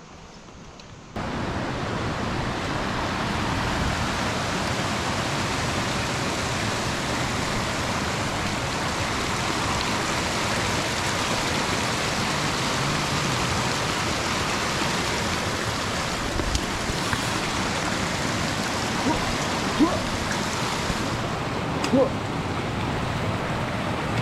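Steady rush of flowing water from a mountain creek or cascade, loud and even, starting abruptly about a second in.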